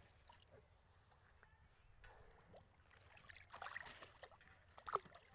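Faint water sloshing and splashing as a hand handles a large carp in a tank, with one sharper splash near the end. A thin, high, falling whistle repeats about every two to three seconds in the background.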